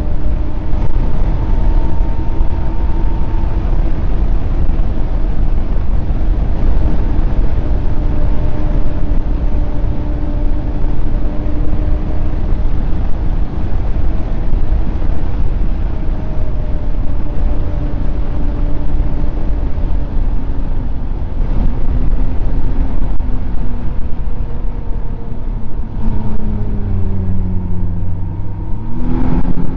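Snowmobile engine running at a steady trail speed under a loud noise of track and wind. Near the end the engine note falls as it slows, then rises sharply as the throttle opens again.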